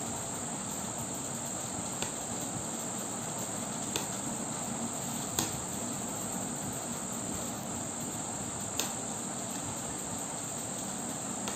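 Knitting needles clicking lightly as stitches are purled: a few short sharp clicks a couple of seconds apart, over a steady high-pitched hiss.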